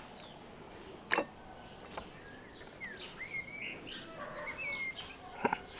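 Birds chirping with short rising and falling calls, over a few sharp taps of a knife on a wooden cutting board, the loudest about a second in.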